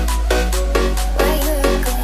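Electronic dance music played for a bass sound check: a heavy, steady deep bass under a fast beat of about four hits a second, with a melody line above.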